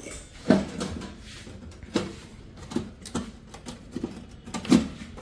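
Irregular sharp knocks and clicks, about five over five seconds, some with a short hollow ring: metal parts and tools being handled on an opened microwave oven during a magnetron replacement.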